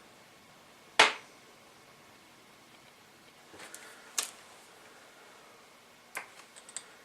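A few sharp clicks and taps of small objects being handled on a workbench: the loudest about a second in, others near four and six seconds in, with fainter ticks between.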